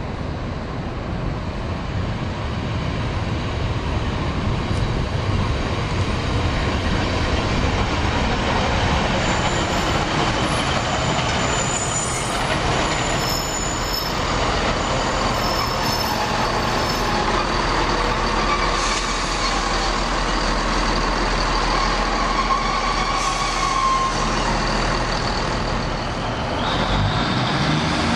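A Class 153 and Class 170 diesel multiple unit pulling into the platform, diesel engines and wheels on the rails running steadily and growing louder as it passes close by. A thin squeal sounds for a few seconds as it slows.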